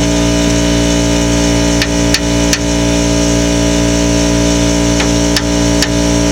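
Six sharp knocks from tools striking during the air bag installation, in two quick groups of three, over the steady hum of an idling engine.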